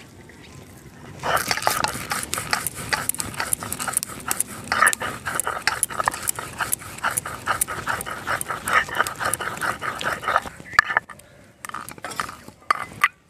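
Mustard seeds being ground on a flat stone slab with a stone roller (sil-nora): quick, rhythmic back-and-forth rubbing strokes, stone scraping on stone. The grinding starts about a second in and stops about ten seconds in, followed by a few separate knocks.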